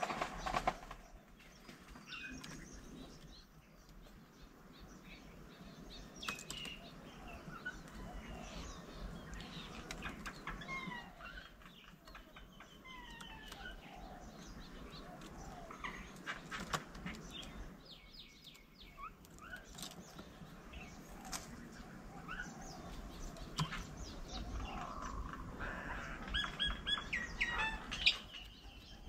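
Several birds chirping and calling with short whistles and gliding notes, with occasional sharp clicks and taps; near the end a quicker run of repeated calls.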